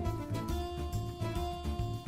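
Background music: a quick, steady bass beat under a melody.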